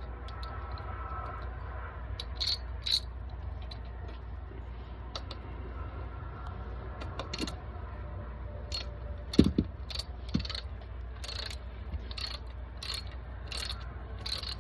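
Socket ratchet clicking in short strokes, a little under two clicks a second, from about nine seconds in, as the Loctited primary drain plug is screwed back in. A few metal clinks and a loud knock come before it, over a steady low hum.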